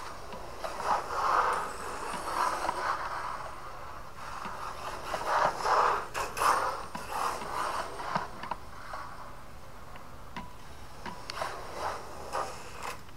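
HSP 94123 electric RC rally car with a brushless motor and metal gears, running on a concrete driveway: the motor and drivetrain whir with tyre noise in uneven surges as the throttle is worked, loudest about six seconds in and again near the end.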